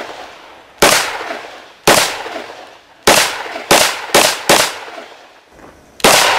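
Semi-automatic pistol firing seven rounds of lead-shot (birdshot) cartridges, each a sharp crack trailing off in an echo. The first shots come about a second apart, then a quick run of four, then one more near the end.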